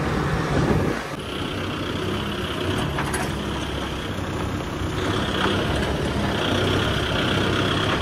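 A heavy vehicle's engine running steadily, with a slight drop in level about a second in.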